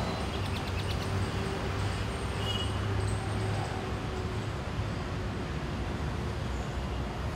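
Steady low rumble of distant road traffic, with a brief faint high note about two and a half seconds in.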